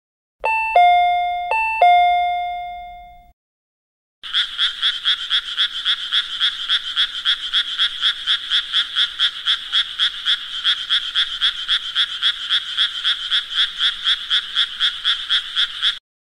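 Two-tone ding-dong doorbell chime rung twice, each high note falling to a lower one that rings on and fades. Then a shrill, fast pulsing ring at about four pulses a second goes on for about twelve seconds and stops suddenly.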